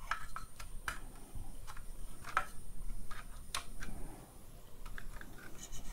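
Irregular small clicks and taps of needle-nose pliers and plastic parts as wires are worked back into the connector on a Dyson V10 handle's circuit board.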